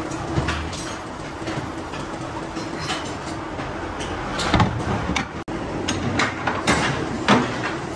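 Steady workshop machine hum and hiss, with a series of metal clanks and scrapes from about four and a half seconds in as steel tyre moulds are slid and handled.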